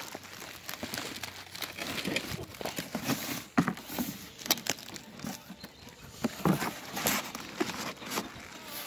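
Plastic wrapping crinkling and cardboard rustling as plastic-wrapped antenna elements are handled in their box, with irregular crackles and a few louder knocks.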